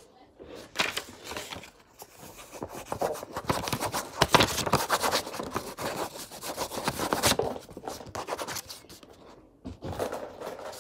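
Pen scratching on paper while an autograph is written, with the paper and hand rubbing close to the microphone. The scratching comes in quick, irregular strokes and is loudest in the middle.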